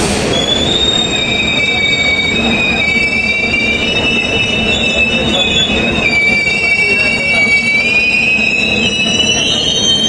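Steel train wheels squealing against the rails as the wagons roll past: a sustained high-pitched screech of several tones that waver slowly in pitch, over the steady low rumble of the moving train.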